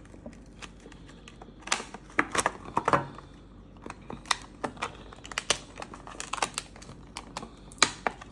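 Clear hard plastic packaging being worked open by hand: irregular sharp clicks and taps of fingernails and fingers on the plastic, with some crinkling.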